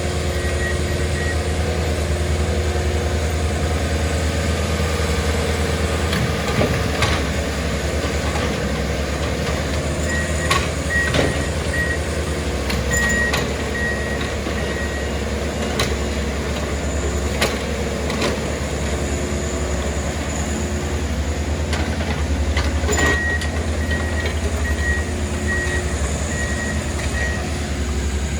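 Diesel engines of railroad track-maintenance machines running steadily. A warning alarm beeps about twice a second in runs that start and stop, and sharp metallic clanks ring out now and then.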